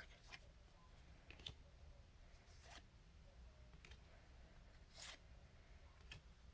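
Faint swishes of cardboard trading cards being slid off one another as a pack is flipped through one card at a time: a short scrape roughly every second, the loudest about five seconds in.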